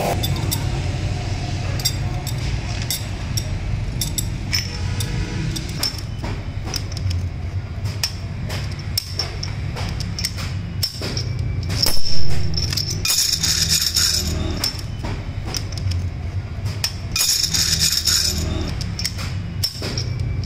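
Steel rollers and races of a cylindrical roller bearing clinking and tapping against each other as the bearing is handled and fitted together, with many short sharp clicks over background music.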